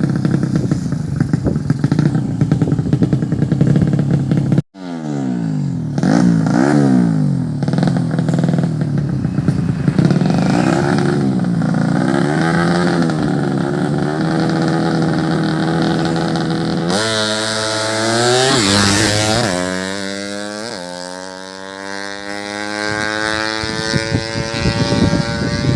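Tuned 130cc drag-racing motorcycle engines revving up and down in repeated blips. About 17 seconds in, one launches and accelerates hard, its pitch climbing and breaking at each upshift.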